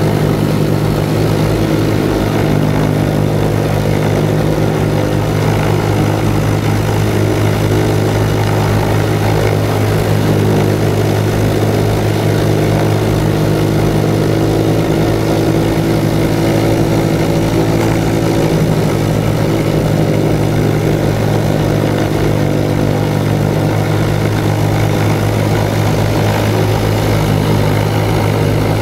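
Lisunov Li-2's Shvetsov ASh-62IR nine-cylinder radial engines running steadily at low power while the aircraft taxis on grass, heard from inside the cabin: a loud, even drone with a deep hum.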